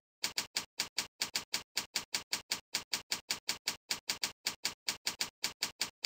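Keyboard keystrokes typing a line of text: a quick, even run of clicks at about five a second.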